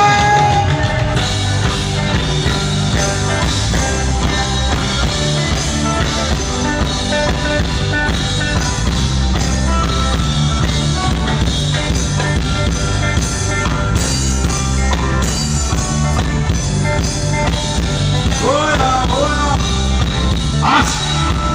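A live band playing an instrumental passage with bass and drums, a voice starting to sing again near the end.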